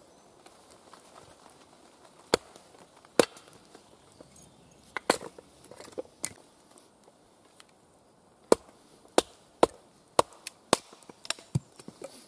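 Husqvarna axe splitting small sticks of wood on a chopping block: about a dozen sharp, irregular knocks of the blade biting and the wood cracking apart, a few spaced ones in the first half, then a quicker run of strikes in the second half.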